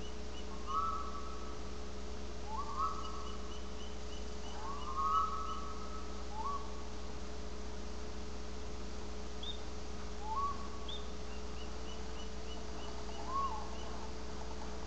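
Faint whistled calls, each rising and then holding briefly, heard about six times, over a steady electrical hum.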